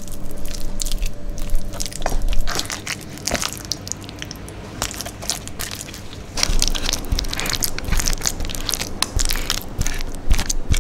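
Wooden spatula stirring and folding a thick, sticky chocolate and Marie biscuit mixture in a pan, with irregular crunching and sticky clicking as the biscuit pieces are pressed and turned. Near the end the mixture is scraped into a lined baking tin.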